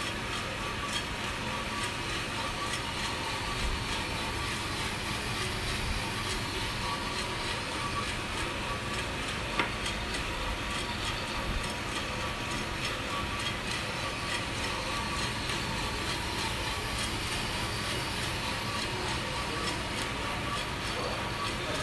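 Vina Roaster coffee roaster running mid-roast: a steady rushing noise from the rotating drum and blower, with a fine rattle of beans tumbling inside. There is one sharp knock about ten seconds in.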